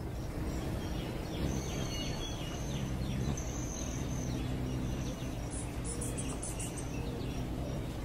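Hummingbirds: short, high, thin chirps over a steady low hum, with a quick run of very high ticks about six seconds in.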